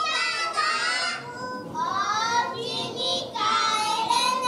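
A small group of young girls singing together in unison in high child voices, ending on a long held note near the end.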